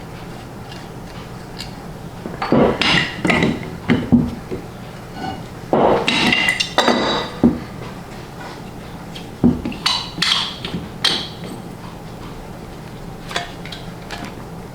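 Metal tools clinking, knocking and scraping against the cast metal of a vintage paint pressure pot as it is taken apart, in three clusters of sharp clanks spread over the first two-thirds, then only a few light ticks.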